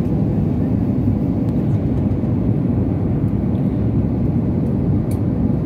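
Steady cabin noise of a jet airliner on approach, heard inside the cabin by the engine: a low, even rumble of engine and airflow with a faint steady hum.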